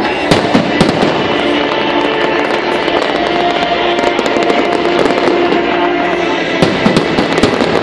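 Fireworks display: aerial shells bursting with sharp bangs and crackling over music with held tones. The bangs come thickest about half a second in and again near the end.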